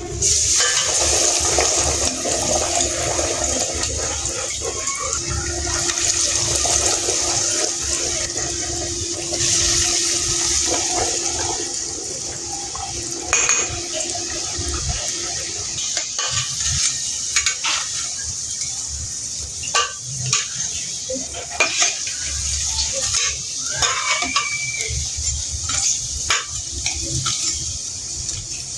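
Food sizzling in a hot pan, starting suddenly and slowly easing, with scattered clicks and scrapes of a utensil stirring in the second half.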